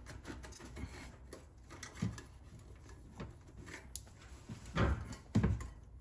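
Hand-handling noise of a metal exhaust tip being twisted and straightened on its pipe: rubbing and scraping, with a few louder knocks near the end.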